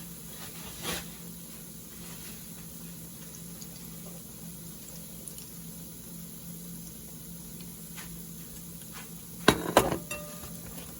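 Kitchen utensils knocking against cookware: a light clink about a second in, then a louder clatter of several sharp metal knocks near the end, over a steady low hum.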